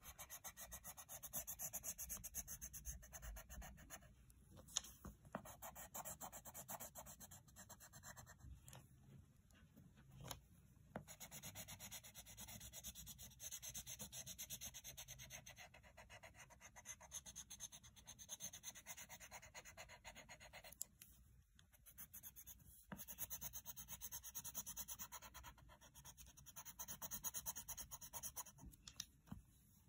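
Coloured pencil scribbling rapidly back and forth on paper, colouring in a drawing, in stretches of several seconds with short pauses between them.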